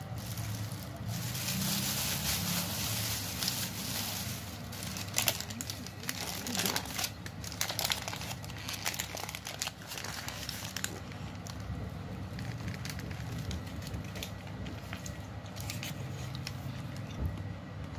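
A thin plastic carrier bag and a paper burger wrapper being crinkled and rustled by hand as the burger is unwrapped. The crackling is densest through the first half, then thins to occasional rustles, over a steady low background hum.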